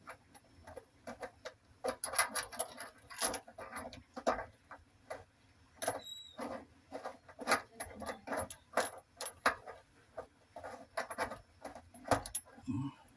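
Irregular small metallic clicks and scrapes as the threaded nut of a braided stainless faucet hose is turned by hand onto a shut-off valve, with a plastic hose wrench knocking against the fitting. A brief high squeak comes about halfway through.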